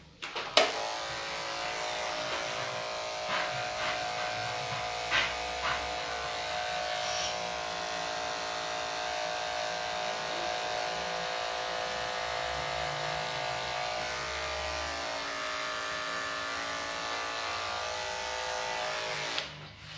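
Corded electric dog-grooming clipper switched on with a click, then running with a steady motor hum as it is clipped through a dog's coat, with a few light clicks from handling. It switches off just before the end.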